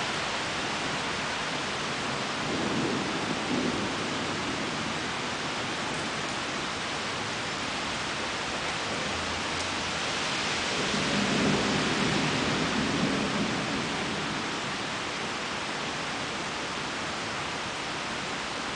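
Steady rain with two rolls of thunder: a short rumble about three seconds in, then a longer, louder one from about ten to fourteen seconds.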